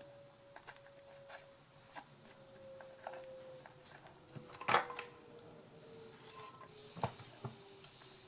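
Small taps and clicks of paper craft pieces and tools being handled on a tabletop, the loudest a little past halfway and another sharp one later. A faint steady tone slowly sinks in pitch underneath.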